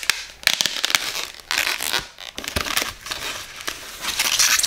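Thin white wrapping bag crinkling and rustling in the hands as it is opened, in uneven crackly bursts.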